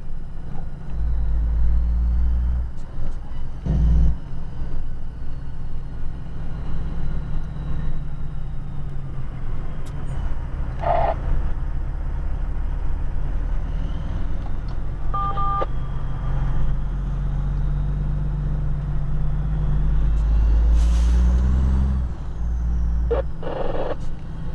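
Truck engine heard from inside the cab while crawling slowly, a steady deep running note whose revs rise about twenty seconds in as it picks up speed. A brief two-tone beep comes about fifteen seconds in, and short bursts of hiss come now and then.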